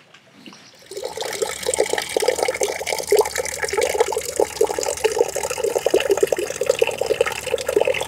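Running water splashing steadily, a close, loud pour that sets in about a second in.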